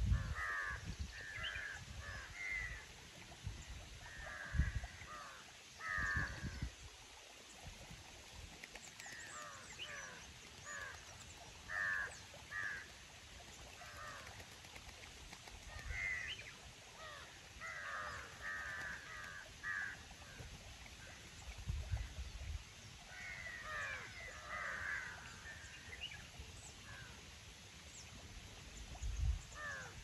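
Crows cawing in repeated bouts of several calls, with a few low rumbles of wind against the microphone.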